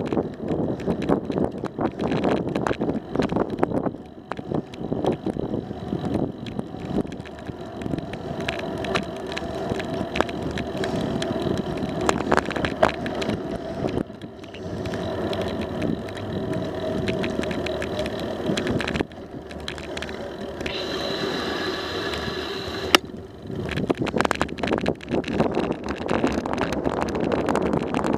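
Bicycle riding on a paved path, heard from a camera on the bike: wind on the microphone, tyre noise and frequent small rattles and knocks from bumps. About twenty-one seconds in a brief high whine sounds for a couple of seconds and stops with a sharp click.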